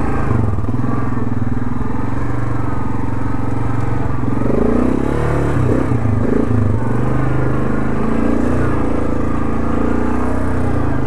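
Yamaha ATV engine running steadily, its pitch wavering up and down for a few seconds midway.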